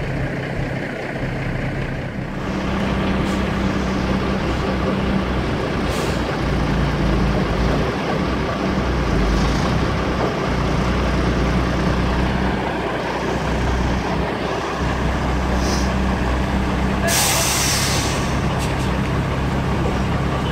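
Diesel engine of an ERF lorry idling steadily, growing a little louder about two seconds in. Near the end comes a sharp hiss of compressed air from the truck's air brake system, lasting about a second.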